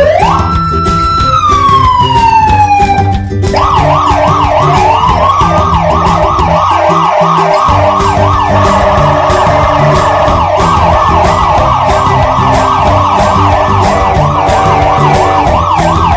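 Siren sound over background music with a steady beat: first a single wail that rises, holds and falls over about three seconds, then a fast yelp of rapid up-and-down sweeps.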